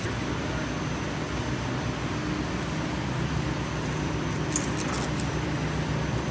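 Steady low hum and rumble of a large warehouse store's background noise, as of air handling and rolling carts. A short cluster of light clicks comes about four and a half seconds in.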